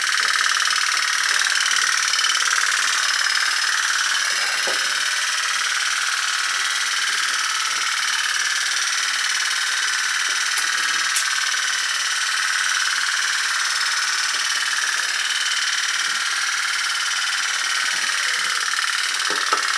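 Candle-powered tin pop-pop steam boat, its boiler diaphragm buzzing steadily at a fast even rate. Two faint clicks come about halfway through.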